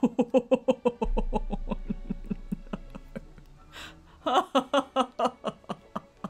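A woman laughing in a quick run of short, even pulses that fade away, then breaking into a second, louder burst of laughter about four seconds in.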